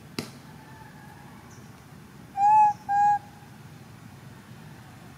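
A young macaque giving two short coo calls back to back about halfway through, each a clear hooting note that rises and falls slightly. A faint click comes just at the start.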